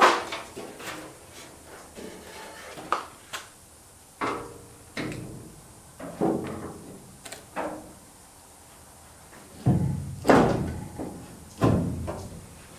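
Steel sheet-metal fender of an Early Ford Bronco being offered up and fitted against the body, making about a dozen irregular knocks and clunks of metal handling. The loudest clunks come at the start and around ten seconds in.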